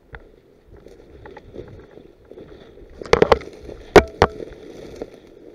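Rustling movement of a player's gear, with a quick cluster of sharp cracks about three seconds in and two more sharp cracks about a second later.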